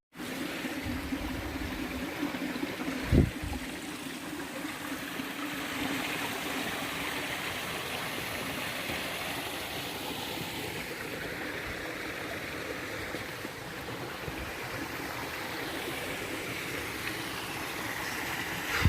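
Steady rushing of a creek's running water, with a single sharp knock about three seconds in.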